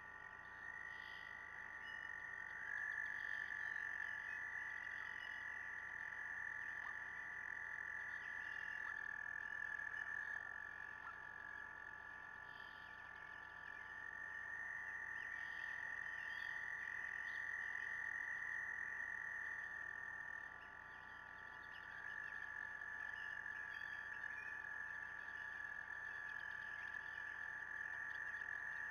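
A chorus of frogs or toads trilling steadily: several long, overlapping trills at slightly different pitches, with single trills dropping out and new ones starting every several seconds.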